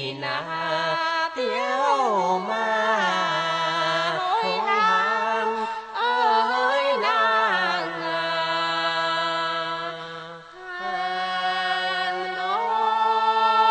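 Then folk singing: a voice winding through a long sliding, wavering melodic line without clear words, then settling into long held notes to the end.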